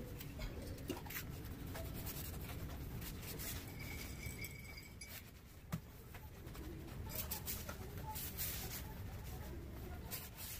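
Quiet outdoor background with faint rustling and light clicks of handling, one sharper knock about halfway through, and faint bird calls.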